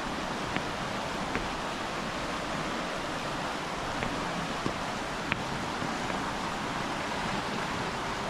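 Swollen, muddy river rushing steadily in full flow after heavy rain, with a few light clicks scattered through it.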